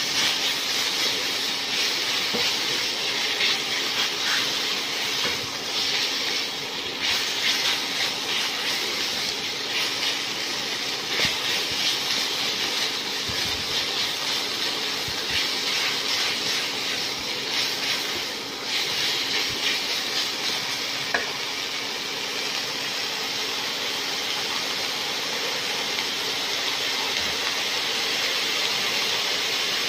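Minced pork and red curry paste sizzling and hissing steadily in a non-stick pan after a splash of water, the water boiling off as steam, with the spatula stirring and scraping the pan now and then. A faint steady low hum runs underneath.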